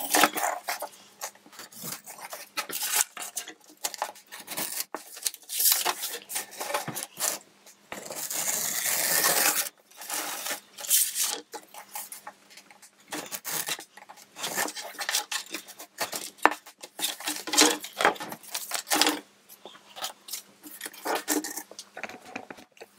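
Cured resin-soaked paper towels and release film being peeled and torn off a fiberglass-and-balsa laminate: irregular crinkling and tearing with sharp clicks and knocks, and one longer steady peel about eight seconds in.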